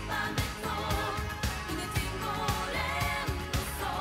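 Swedish pop song: a woman singing a melody over a steady drum beat, about two beats a second.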